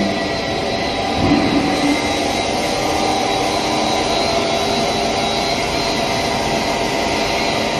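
Steady drone of a running stretch film making machine: motors and cooling fans, a hiss carrying several steady whining tones. A brief louder sound rises over it a little over a second in.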